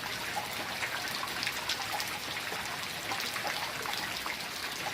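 Steady rain, with many separate drops ticking one after another.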